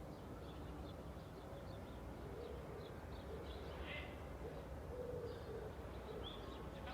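A dove cooing, several low wavering coos repeated from about a third of the way in, over frequent short chirps of small birds and a steady low traffic rumble.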